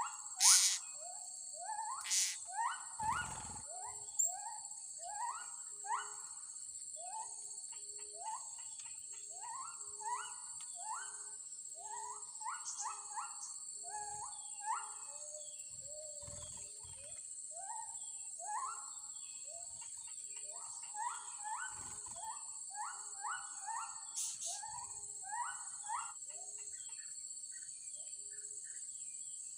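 Outdoor animal chorus: many short rising calls, one after another, over a steady high insect drone, with a few sharp clicks near the start and once later.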